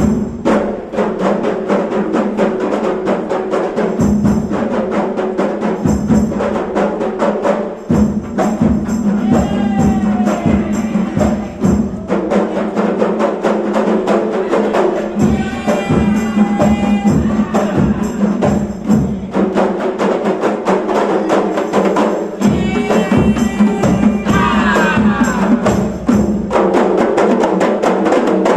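A kompang troupe beating Malay kompang frame drums by hand in a fast, interlocking rhythm.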